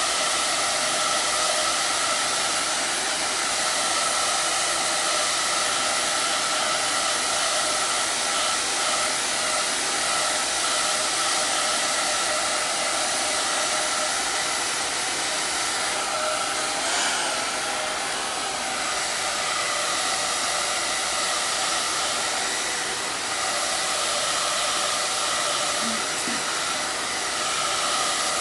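Handheld hair dryer running steadily, a rush of air with a steady whine in it, drying freshly applied chalk paste. Its loudness dips slightly now and then as it is moved over the board.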